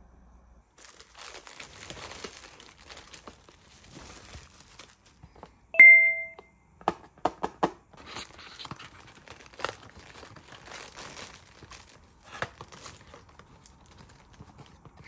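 Plastic wrapping and bubble wrap crinkling and rustling as gifts are handled and unwrapped, with sharp clicks as a small paper box is opened. A single short bell-like ding about six seconds in, the loudest sound.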